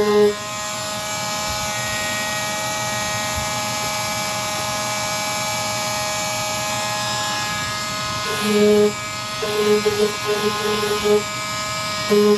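Handheld electric power sander running steadily on motorcycle bodywork, a constant motor buzz with a sanding hiss. Background music comes in about eight seconds in.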